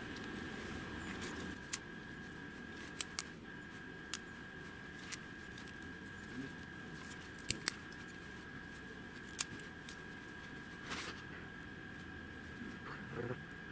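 Small campfire of pine needles and twigs crackling, with about ten sharp, irregular pops.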